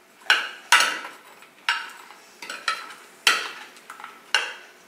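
Metal spoon clinking and scraping against a glass baking dish while sauce is stirred through pieces of chicken: about eight sharp clinks at uneven intervals.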